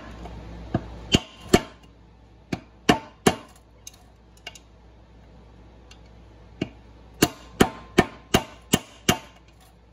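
Nut driver being tapped with a hammer to drive the old plastic clutch pivot pin out of a ZF transmission bellhousing: sharp taps, several spaced ones, a short pause, then a quick run of about seven near the end.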